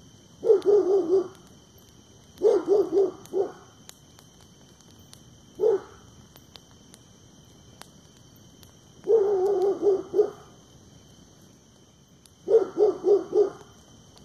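A dog barking in five bouts of quick barks, most of them runs of three or four, one a single bark.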